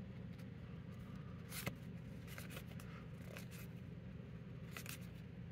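Pokémon trading cards being handled and flicked through by hand: faint slides and light clicks of card stock, one a little louder about a second and a half in, over a low steady hum.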